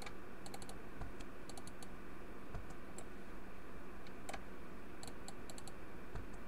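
Light clicking of a computer mouse and keyboard, mostly in short quick runs of three or four clicks with a few single clicks between, over a steady low hum.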